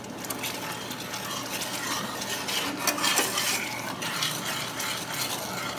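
A utensil stirring thick homemade barbecue sauce of butter, brown sugar, honey and ketchup in a pan, scraping and tapping against the pan, over a low steady sizzle from the heated pan.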